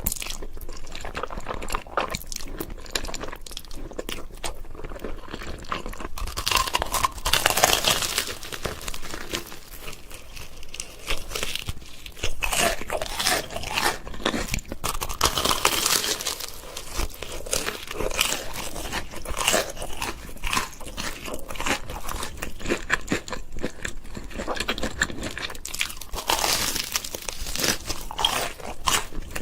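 Close-miked eating sounds: a person biting and chewing food, with dense wet mouth clicks and louder bursts of chewing every few seconds.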